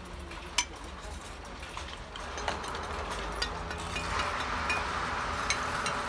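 Bricklaying work: a steel trowel tapping and clinking on clay bricks, a few sharp clicks, the loudest about half a second in, over a steady low hum and a haze of noise that builds in the second half.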